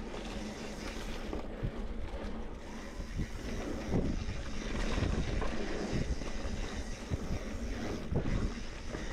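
Mountain bike rolling over a dirt forest trail: tyre noise and rumble with frequent knocks and rattles from the bike over bumps, under wind noise on the microphone.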